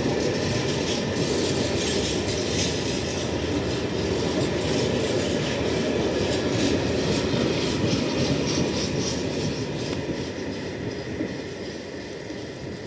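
A train rolling past with steady wheel-on-rail running noise, fading away over the last few seconds.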